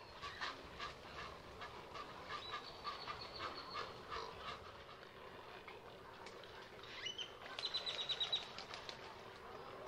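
Birds calling in a nesting colony: a run of short, repeated calls through the first half, then a quick high trill of about eight notes near the end, which is the loudest sound.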